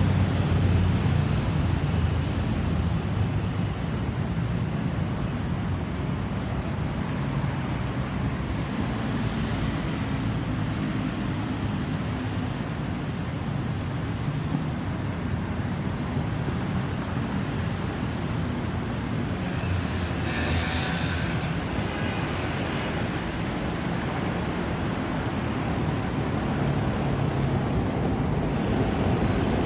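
Road traffic: a steady hum of vehicle engines and tyres, loudest at the start as a nearby engine eases off. A short hiss about two-thirds of the way through.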